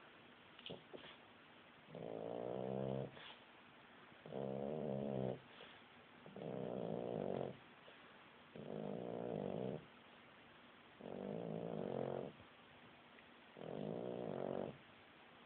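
A pet sleeping on its back, snoring: six even snores, each about a second long, one every two seconds or so.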